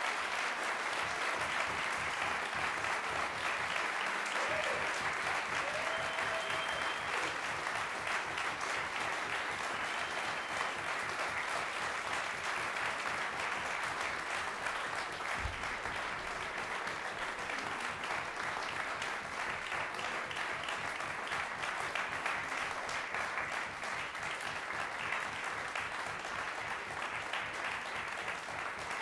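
Audience applauding steadily, fading slightly toward the end.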